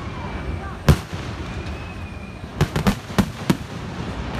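Fireworks exploding: a single sharp bang about a second in, then a quick run of about five bangs close together near the three-second mark.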